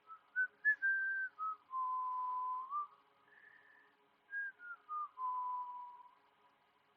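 A person whistling a short tune: two descending phrases of clear notes, each ending on a long held low note.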